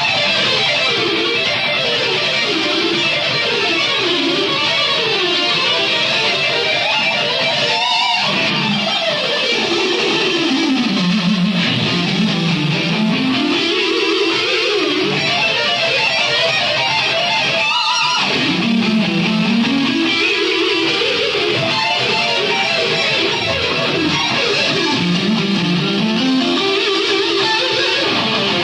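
Rock music led by electric guitar, played in fast runs of notes that sweep up and down, with two quick climbs to high notes about eight and eighteen seconds in.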